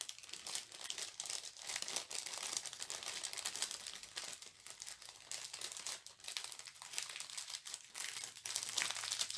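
Plastic packaging of a diamond painting kit crinkling and rustling as it is handled, an irregular crackling that goes on throughout.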